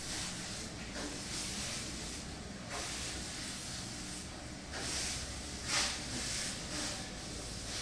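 Unsteady hissing noise that swells and fades, loudest about six seconds in, over a low steady hum.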